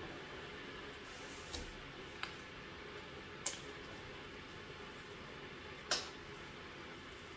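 A stack of woven placemats being set down and handled on a wooden tabletop: four light taps and clicks, the sharpest about three and a half and six seconds in, over faint room hiss.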